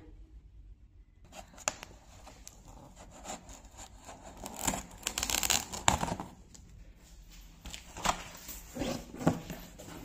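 Cardboard carton of a microwave oven being opened by hand: packing tape torn away and the flaps rustled and pushed back, with a longer tearing stretch about five seconds in and a few sharp knocks near the end.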